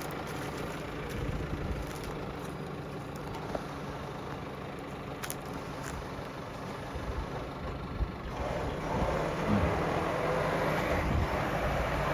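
A bogged four-wheel drive's engine running steadily; about eight seconds in it grows louder and noisier and stays that way.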